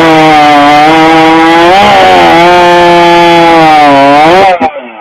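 Gasoline chainsaw running at full throttle, sawing through a log in a timed competition cut. The engine pitch dips and comes back up twice, and the sound cuts off abruptly about four and a half seconds in.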